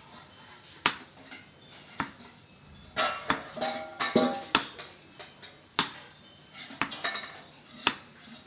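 Wooden cricket bat knocking a ball hung on a string, a sharp hit about once a second as the ball swings back to be struck again.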